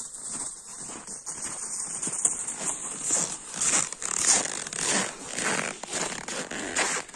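Footsteps crunching in wind-packed snow, getting louder as the walker comes closer, with a bag dragged over the snow behind him on a rope.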